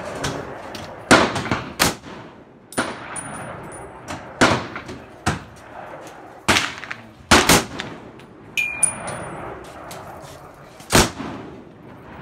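Gunshots: about eight sharp reports at uneven intervals, some much louder than others.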